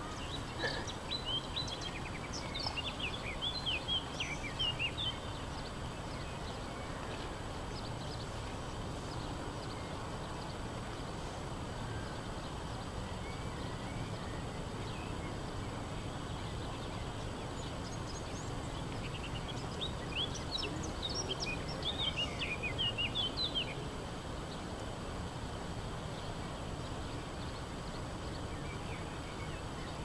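Steady background noise of a town, with a small bird singing bursts of quick chirping notes twice: in the first five seconds and again about twenty seconds in.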